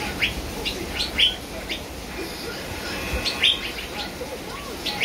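Caged songbird chirping: short, sharp, falling notes repeated about every half second, a few of them louder.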